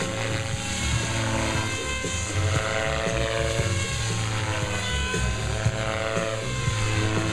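Compass Warp 360 radio-controlled helicopter flying aerobatics, its motor and rotor whine sliding up and down in pitch as it manoeuvres.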